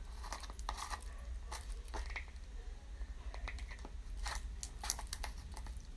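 Small plastic cosmetic jar and its lid being handled: scattered light clicks and scrapes of plastic as the lid is worked back onto a jar whose lid won't close.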